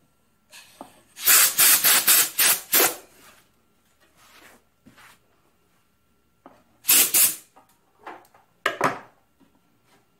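Compressed-air blow gun with a copper tube extension, blasting into a drilled-out bolt hole in a cast-iron engine block to clear out the drill chips. A quick run of hissing bursts about a second in, then one longer blast and two short ones near the end.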